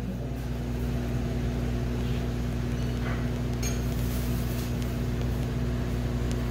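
A steady mechanical hum with a constant low drone, and a few faint clinks about two, three and three and a half seconds in.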